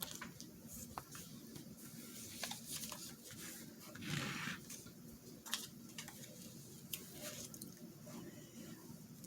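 Paper being handled and rustled at a work table, with scattered light clicks and taps and a longer rustle about four seconds in.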